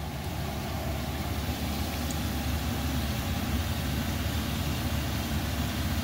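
Cassava pieces deep-frying in hot oil, sizzling steadily, under a steady low rumble.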